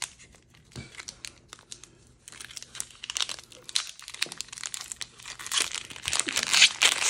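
A Pokémon card booster pack's foil wrapper crinkling and tearing as it is pulled open by hand. A few light rustles for the first two seconds, then steady crackling from about two seconds in, loudest near the end.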